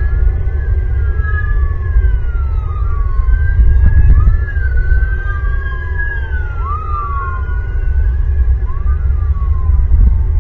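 Emergency vehicle sirens wailing, two or more overlapping, their pitch sliding slowly up and down, over a loud steady low rumble.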